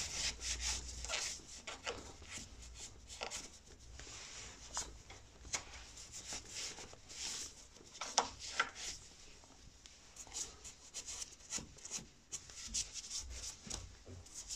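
A cloth rubbing over a motorcycle's front brake caliper and wheel rim in irregular wiping strokes.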